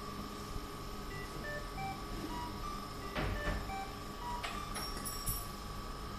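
Electronic beeper on a prototype circuit board sounding a run of short beeps at changing pitches over a steady high-pitched tone, with a few sharp clicks about three seconds in and again near five seconds.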